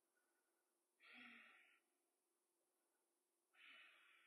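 A person's faint breathing over near silence: two soft breaths, one about a second in and one near the end.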